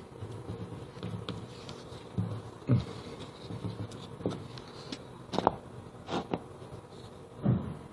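Putty knife patting spackling paste onto a drywall, dabbing it on to raise a knockdown texture: a run of soft, irregular taps and smacks, a few louder than the rest, over faint scraping and handling.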